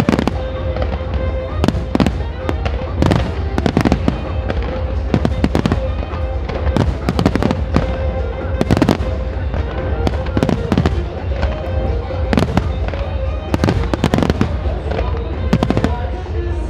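Aerial firework shells bursting in quick, irregular succession, several bangs and crackles a second over a steady low rumble, with the display's music playing a long held note underneath.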